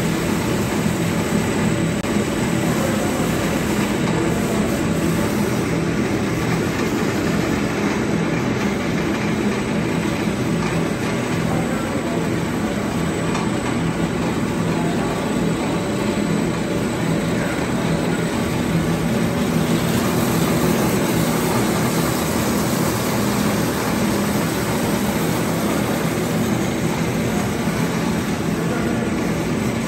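Sheet cutting machine and its roller conveyor running: a steady mechanical noise with a low hum.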